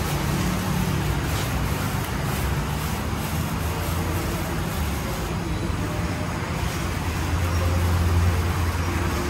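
Steady low rumble of road traffic and engines, with a hum that swells a little about seven seconds in.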